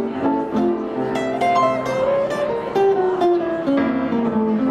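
Guitar music: a melody of plucked guitar notes with some chords.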